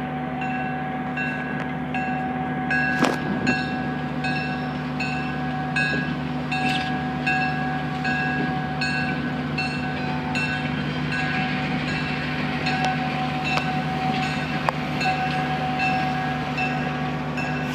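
Southern Railway GP30 diesel-electric locomotive No. 2601 (EMD 16-cylinder two-stroke diesel) passing slowly with a passenger train, its engine drone steady. Over it, the locomotive bell rings in an even rhythm, a stroke a little more than every half second. A few sharp clicks come from the wheels and train.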